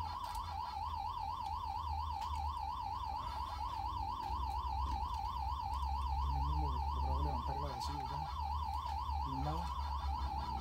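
Electronic siren warbling rapidly up and down around one pitch, about four wobbles a second, over a low hum. It changes to a steady tone near the end.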